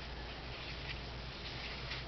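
Room air conditioner running, a steady hum and hiss, with a couple of faint soft rustles of paper being handled.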